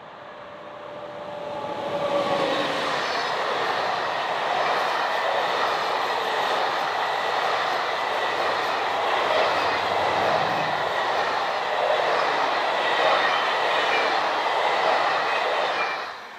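SNCF electric locomotive hauling Intercités Corail coaches passing close by. A steady tone from the locomotive rises in loudness as it approaches. Then comes the loud, steady rolling noise of the coaches' wheels on the rails, falling away just before the end.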